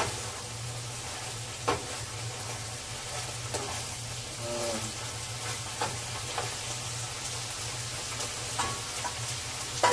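Ground turkey sizzling in a hot pan as it finishes browning, with a few sharp clicks of a utensil against the pan.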